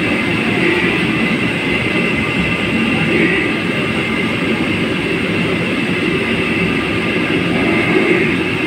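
Loud, steady roar of kitchen background noise with no distinct events.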